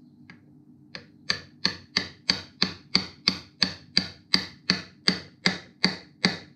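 Ratchet wrench clicking in a steady rhythm, about three sharp metallic clicks a second, each with a brief ring, as a homemade aluminium puller is screwed back onto a moped engine's clutch hub.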